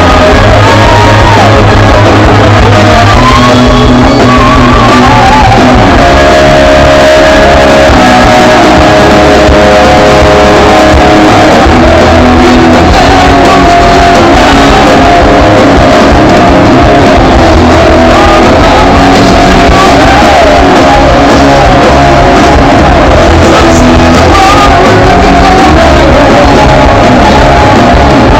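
Hard rock song played by a full band with electric guitar and a lead vocal, very loud and pinned at full level throughout.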